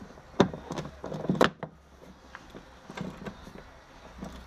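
Hand tool and fingers working at the screws of a plastic inner wheel-arch liner: irregular light clicks and knocks, the sharpest about half a second and about one and a half seconds in.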